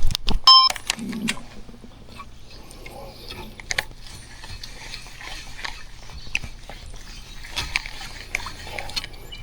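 A few sharp knocks in the first second, then a fishing reel being wound in, with light scattered mechanical clicking and ticking as a lure is retrieved.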